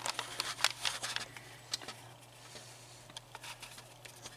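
Faint, scattered light clicks and taps of hands working at a pinball machine's relay bank, over a steady low hum.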